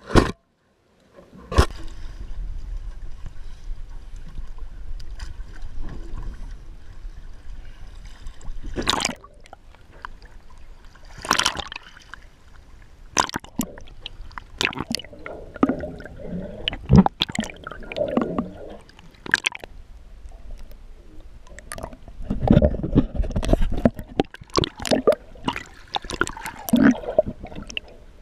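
Sea water sloshing and gurgling around an action camera held at and under the surface beside a boat, with many scattered splashes and knocks.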